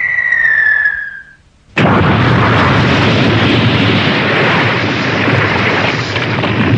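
Cartoon fight sound effects: a falling whistle that drops steadily in pitch for about a second and a half, then, just under two seconds in, a sudden loud crash of a body slamming into the ground, followed by several seconds of heavy rumbling noise that eases off near the end.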